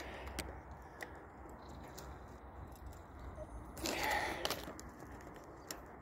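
Quiet outdoor background with a few faint clicks from a handheld phone being moved along a bridge railing, and one brief, louder soft sound about four seconds in.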